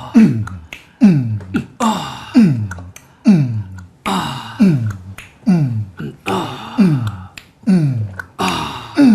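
Several people beatboxing together: a repeating beat of deep mouth kick drums that slide down in pitch, about one every three quarters of a second, with clicking and hissing snare and hi-hat sounds in between.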